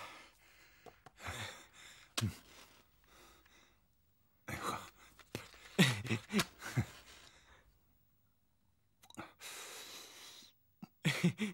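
A person's short sighs and grunts, in several separate bursts with quiet gaps between.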